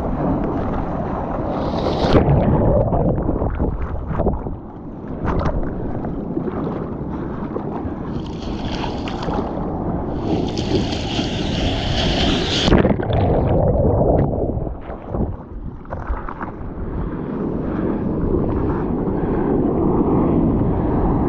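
Sea water sloshing and splashing around a surfer in the water, with wind buffeting the microphone. About eight seconds in, and again from about ten to twelve seconds, a louder hiss of foaming water passes.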